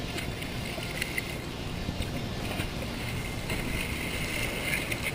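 Steady wind and water noise around a small flats boat, with a few faint clicks.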